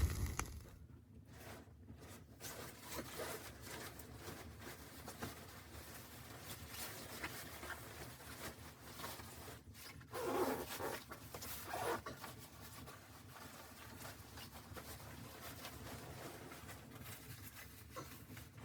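Quiet rustling and handling noises, with two louder scraping sounds about ten and twelve seconds in.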